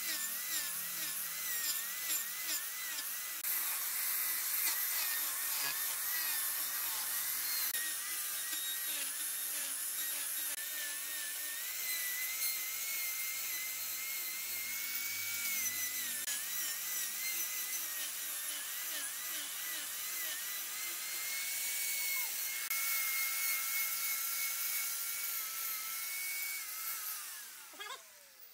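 Angle grinder with an abrasive disc grinding a segmented wooden vase blank as it spins on a wood lathe: a high motor whine that wavers and dips in pitch as the disc bears on the wood, over a steady hiss of abrasion. It stops shortly before the end.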